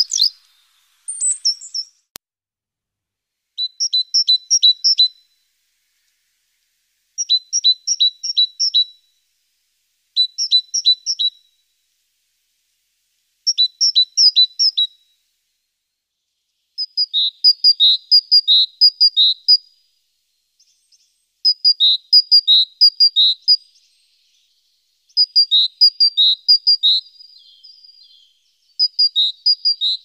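Small songbird singing: repeated phrases of quick, high notes, each phrase lasting one to two seconds with short pauses between them, the later phrases longer and busier.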